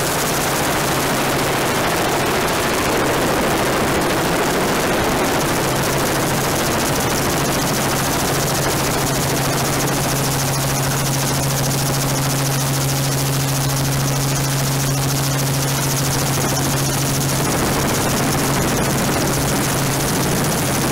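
Helicopter in flight heard from aboard: turbine and rotor running steadily, a constant low hum under a wide, even rush of wind and engine noise.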